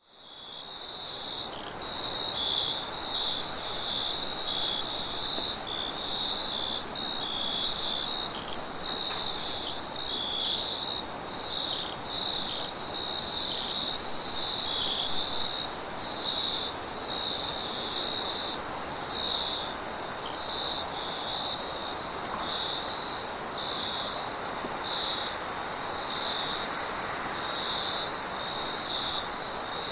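Crickets chirping in quick repeated pulses over a steady high insect trill, with a soft even wind hiss beneath; the sound fades in over the first second or so.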